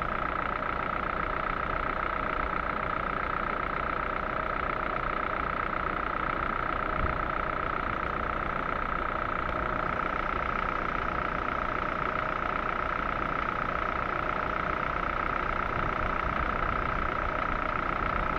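Ford 1.6 engine running steadily with a steady high whine over it. The engine is warm but has sat for ten minutes, and it is knocking: the fault the owner is recording.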